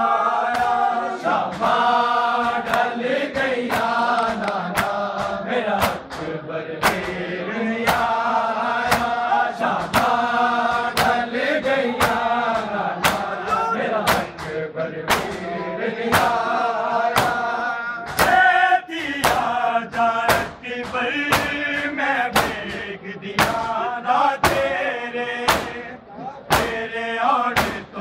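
Men chanting a Punjabi noha in unison, with the sharp slaps of matam, open hands striking bare chests in time, roughly once a second.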